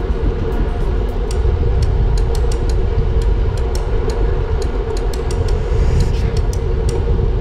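Wind buffeting the microphone of a camera on a moving bicycle, a loud steady rumble with a constant hum and irregular light ticks.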